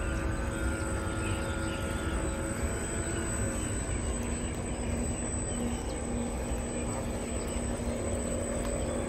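Drive motors of an RC model fast ferry whining steadily over a low rumble. The whine drops in pitch about three and a half seconds in as the boat eases off and slows.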